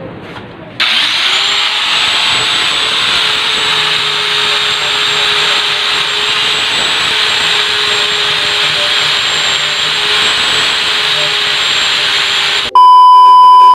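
Small electric grinder with a buffing pad switches on about a second in and runs steadily with a whine, polishing a stainless steel spoon lure. Near the end, a loud electronic beep cuts in for about a second.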